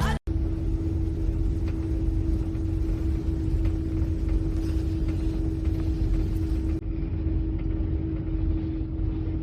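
A steady low rumble with a constant hum, the sound of a running motor.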